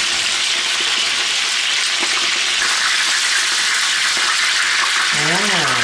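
Spatchcocked chickens frying in fat in skillets on a gas stove: a steady, loud sizzle.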